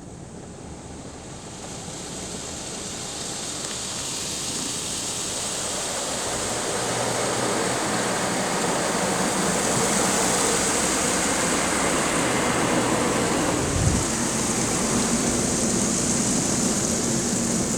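Ryko SoftGloss Maxx automatic car wash heard from inside the car's cabin: a rushing hiss of spray and air that builds steadily over about ten seconds, then holds, with one short low thump near the end.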